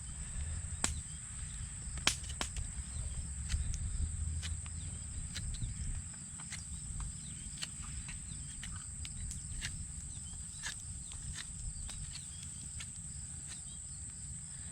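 Steady high-pitched insect chorus, with scattered sharp clicks and snaps throughout.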